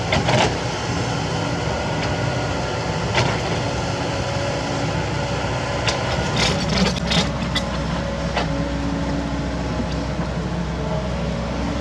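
Kobelco SK75 mini excavator's diesel engine running steadily under work, with several sharp knocks, most of them clustered a little past halfway.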